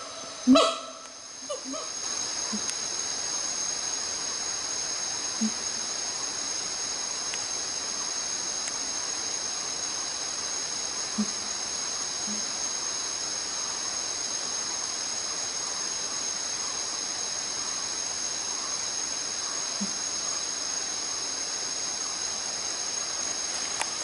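A siamang's loud honking calls end about a second and a half in. From then on a steady high-pitched insect chorus fills the forest, broken only by a few faint short low calls.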